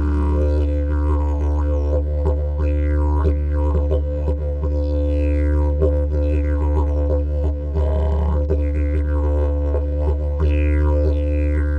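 Wooden didgeridoo played as a continuous low drone, with falling, mouth-shaped sweeps through its upper overtones every couple of seconds that give a rhythmic pattern.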